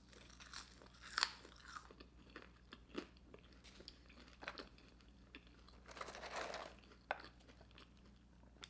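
Close-miked chewing of McDonald's french fries: soft, irregular crunches and mouth sounds, with a longer stretch of chewing about six seconds in.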